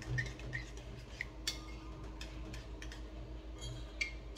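A few scattered light clicks and clinks of a spoon against a dish, over a faint steady hum.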